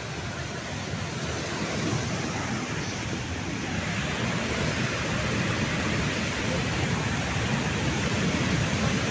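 Flash flood of muddy water and debris rushing down a mountain stream channel: a steady rushing noise that grows gradually louder as the surge builds.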